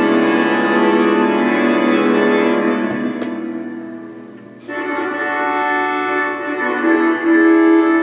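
Organ music playing from a vintage GE C4-333 flip clock radio: long held chords. One chord fades away around four and a half seconds in, and a new chord comes in abruptly.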